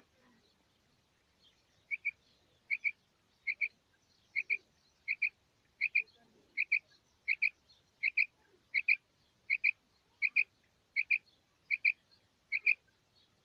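Female rain quail calling: a repeated two-note call, about fifteen pairs of short high notes evenly spaced a little under a second apart, starting about two seconds in.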